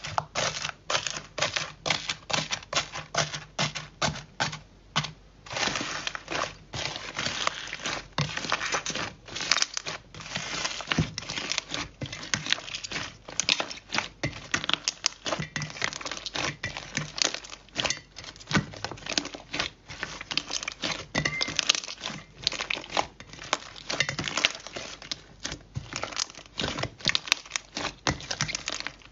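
Slime being pressed, squeezed and stretched by hand in a metal bowl, giving dense, rapid crackling and crinkling pops with only brief pauses.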